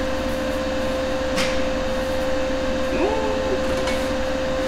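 Steady mechanical hum on one constant tone, like a running electric motor or fan, with a single sharp click about a second and a half in.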